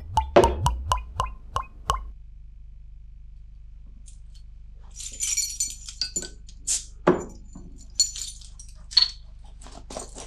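A quick run of bright plinking notes, about four a second, for the first two seconds. Then a glass beer bottle is opened with a bottle opener: metal scraping on the crown cap, a short hiss as the cap comes off, a knock, and a few sharp clinks of metal and glass.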